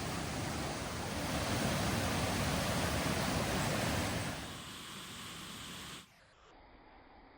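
Rushing river water, a steady loud rush. It drops to a lower level about four seconds in and falls away to a faint hiss about six seconds in.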